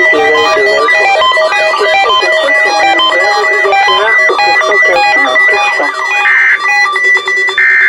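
Music plays for about six seconds. Then, near the end, two short buzzing digital data bursts come about a second apart, typical of the EAS end-of-message (SAME) tones that close an alert.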